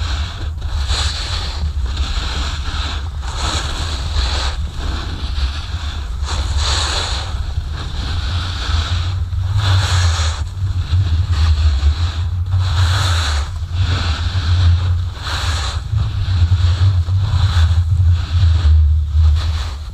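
Wind buffeting the camera microphone as a strong low rumble, with the hiss and scrape of a snowboard's edges carving across packed snow swelling and fading every second or so as the rider turns.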